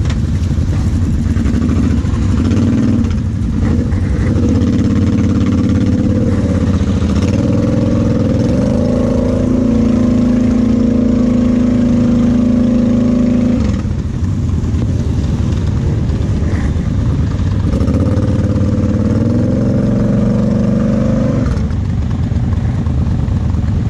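Kawasaki KFX 700 V-Force quad's V-twin engine revving under load in mud, climbing and holding high revs for several seconds at a time. It drops back about two-thirds of the way through, then climbs and holds again before easing off near the end.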